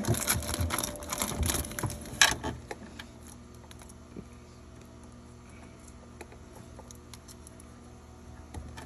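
Hands handling a plastic wiring-harness connector and its wires: a flurry of clicks and rustling in the first two seconds, ending in one sharp click, then only faint scattered ticks.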